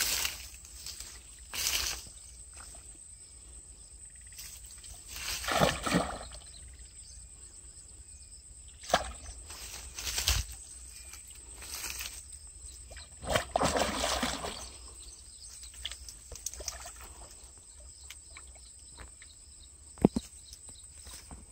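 Irregular splashing and sloshing at the pond surface as a hooked catch thrashes against a bent fishing rod, in several bursts with the biggest about 5–6 seconds and 13–14 seconds in. A single sharp click about 20 seconds in.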